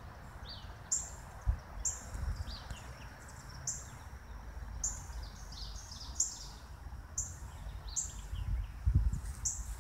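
A bird repeating a short high chirp about once a second, with softer lower chirps from other birds between, over a steady low rumble and a couple of dull thumps.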